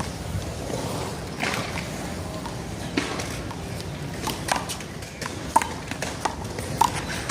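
One-wall handball rally: the small rubber ball smacked by hand and hitting the concrete wall, sharp irregular smacks coming faster in the second half, over steady outdoor background noise.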